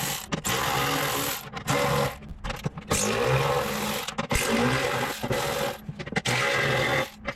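A handheld power tool, such as a cordless impact driver or ratchet, runs in about six short bursts of around a second each with brief pauses between them, as it backs fasteners out of a bumper's bottom valance.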